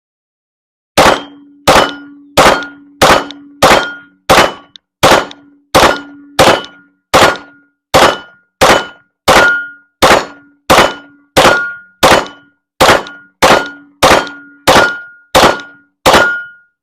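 A 9mm Glock 45 pistol fires about two dozen shots at a steady, unhurried pace, roughly one every 0.7 seconds. Each shot is followed by the ring of a steel target being hit. The +5-extended magazine feeds every round through without a stoppage.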